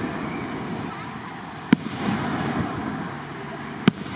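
Aerial firework shells bursting, two sharp bangs about two seconds apart over a steady background of noise.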